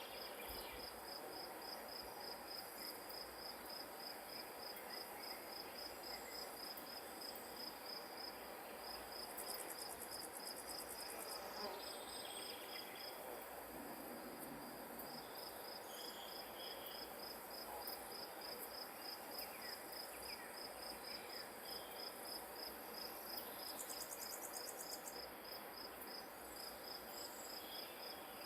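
Grass insects chirping: one high chirp repeats steadily several times a second, with short breaks twice, and brief buzzy trills from another insect come in twice, over a faint outdoor hiss.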